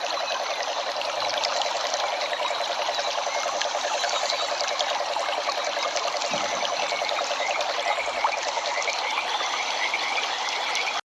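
A dense outdoor chorus of rapid, pulsing animal calls, with scattered bird chirps above it, cutting off abruptly near the end.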